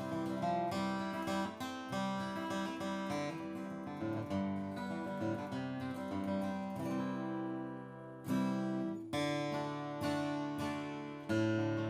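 Martin D-28 Authentic 1941 rosewood dreadnought acoustic guitar played with a flatpick: picked notes and chords that fade out around seven seconds in, then loud strummed chords about eight seconds in and again near the end.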